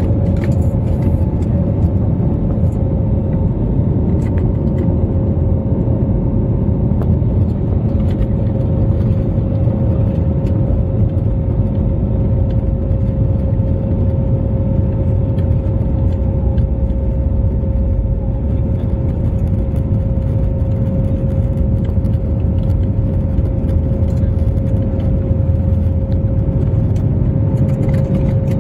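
Inside the cabin of an IndiGo Airbus A320-family jet: its turbofan engines running at a steady power while the aircraft rolls on the ground. A constant deep rumble with a steady whine on top that neither rises nor falls.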